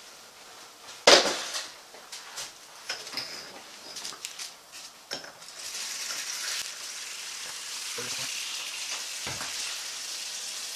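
Plastic oven bag rustling, with a sharp knock about a second in, then a steady hiss of water being poured into the bag in the roasting pan from about halfway.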